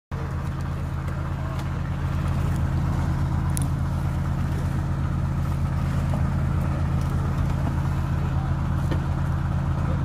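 Fishing boat's engine running at a steady low drone, with a few faint clicks and knocks from work on deck.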